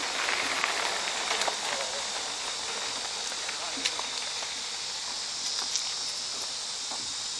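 Steady, high insect chorus in the woods, such as crickets, with a few small clicks.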